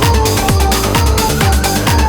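Electronic dance music with a steady four-on-the-floor kick drum and a rising synth sweep, cutting off suddenly right at the end.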